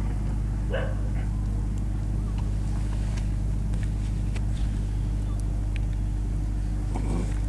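Steady low engine-like hum with wind rumble on the microphone, and a few faint clicks.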